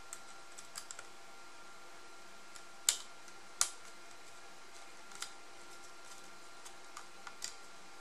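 Small screws being driven with a screwdriver to fasten a metal drive caddy onto an SSD: scattered light clicks and ticks of metal on metal, with two sharper clicks about three seconds in.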